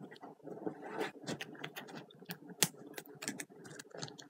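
Irregular light clicks and crinkly rustling of objects being handled at close range, with one sharper click about two and a half seconds in.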